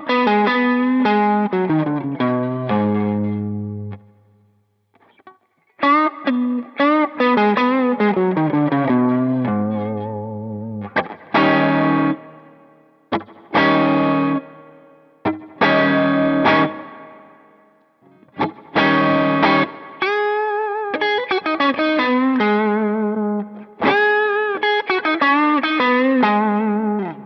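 Electric guitar played through a Flamma FS06 digital preamp pedal on its T-Rock (Dumble-style) clean channel, pushed into light overdrive by a Tube Screamer. It plays melodic phrases and ringing chords, with short pauses about four seconds in and again near eighteen seconds.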